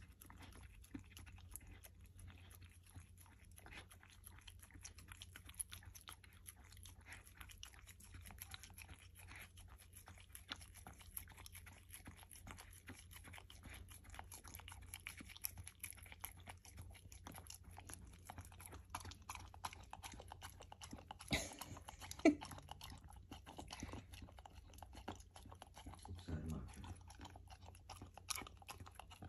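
Golden retriever puppy licking and lapping peanut butter out of a plastic bottle cap: a fast, faint run of small wet clicks and smacks, with a couple of louder knocks a little past the middle.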